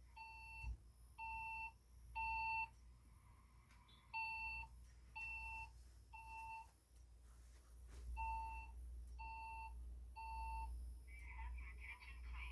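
Fire alarm speaker sounding the temporal-three evacuation tone: three short, even beeps and a pause, three times over, the opening of a Siemens voice evacuation message. A voice starts near the end.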